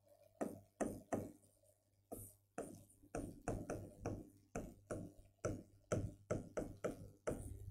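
Marker pen writing on a whiteboard: a faint run of short strokes, about three a second, with a pause of about a second near the start.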